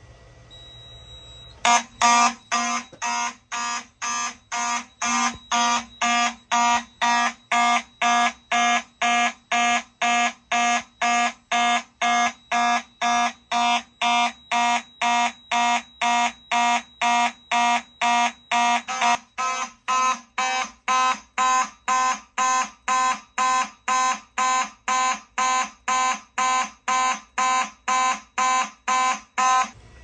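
Mechanical fire alarm horns sounding together in a steady pulsing pattern, about two blasts a second. It is the general alarm from a smoke detector tripped by fog-machine smoke. The horns start a little under two seconds in and cut off at the end.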